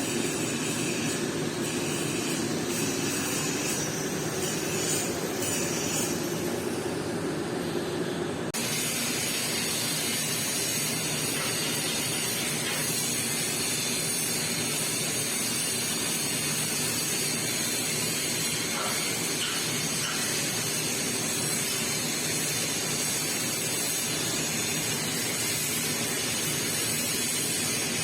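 Welding arc on stainless-steel pipe, hissing steadily, with a sudden change in tone about eight seconds in.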